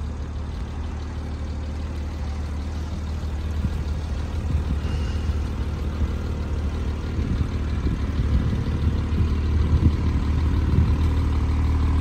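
2021 Porsche 718 Spyder's 4.0-litre flat-six idling steadily, a low hum that grows louder over the last few seconds as the exhaust tips come close.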